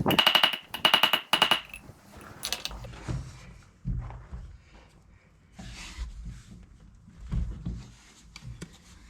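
Rapid metallic rattling with a ringing tone in three short bursts in the first two seconds, then scattered clunks and knocks of metal parts and tools being handled during wheel-bearing work on a corn planter.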